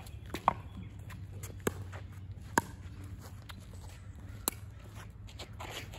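A pickleball rally: paddles striking the hard plastic ball, four sharp hits at uneven intervals, with a few fainter taps between them.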